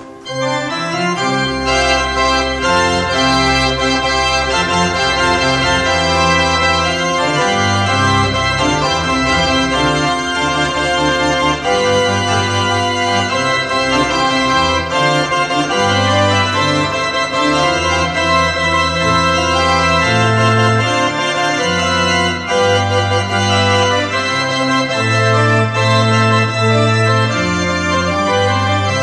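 Bernasconi pipe organ playing loudly, coming in suddenly at the start, with low bass notes shifting under held chords.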